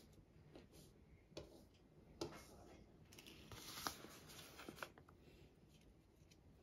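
Faint rustling of paper banknotes being handled, with a few light taps and clicks, the rustle thickest about halfway through.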